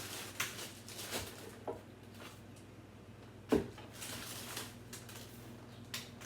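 Scattered handling noises: short rustles and light clicks, with one sharper knock about three and a half seconds in.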